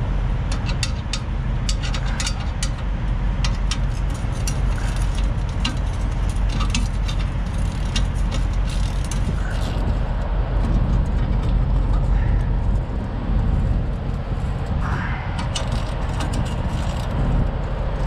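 Metal hand tools clicking and clinking irregularly as truck mud-flap bolts are worked loose, over a steady low rumble of a vehicle engine running nearby.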